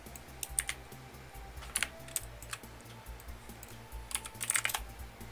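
Computer keyboard keys clicking: scattered single keystrokes, then a quick run of them a little past four seconds in. Quiet background music with a steady low beat runs underneath.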